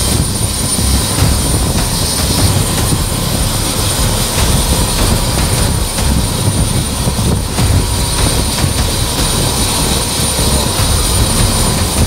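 Helicopter running on its helipad: a steady high turbine whine over a heavy low rumble.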